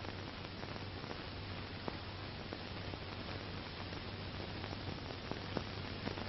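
Surface noise of an old 1940s film soundtrack with no dialogue or music: a steady hiss with a low hum under it and scattered faint crackles and pops.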